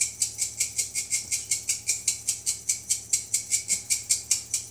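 Pepper shaker being shaken hard and fast, an even rattle of about five or six shakes a second that stops near the end. The shaker is letting out little pepper, which is why it gets such vigorous shaking.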